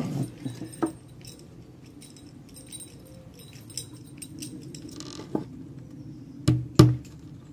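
Claw hammer driving a small nail through the side bar into the bottom bar of a wooden beehive brood frame: two sharp blows close together near the end. Before them, a few light clicks as the nail and frame are handled.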